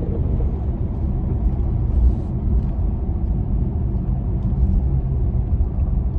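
Tesla driving on the road: a steady low rumble, with a few faint scattered ticks above it.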